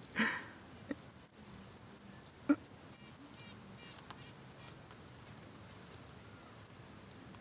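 Faint, quiet outdoor background with a cricket chirping in short, evenly spaced, high-pitched pulses. A couple of brief soft knocks come through, the clearest about two and a half seconds in.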